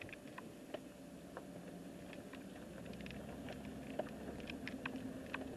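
Steady low hum of a vehicle driving slowly, heard from inside the cab, with many irregular light clicks and ticks from the dash camera rattling on the rough road.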